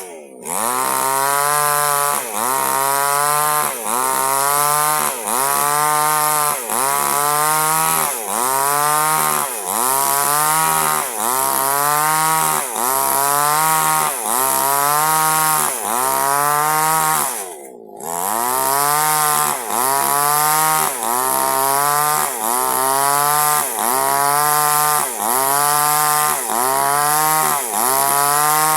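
Chainsaw cutting durian wood, the engine's pitch dipping and recovering in a regular cycle about every second and a half as the chain bites. It breaks off briefly about two-thirds of the way through.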